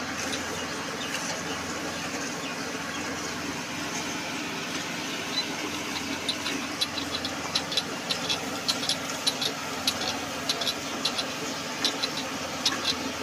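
A cow being milked by hand into a steel pail: milk streams squirting into the pail over a steady hiss. From about five seconds in, sharp metallic clicks come several times a second, irregularly.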